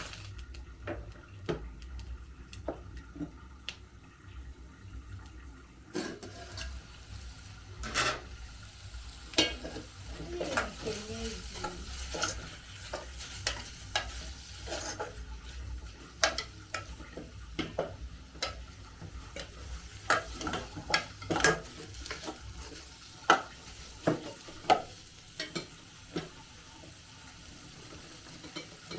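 A cooking spoon stirring, scraping and knocking against a metal cooking pot, with irregular clinks and taps, over a steady low hum.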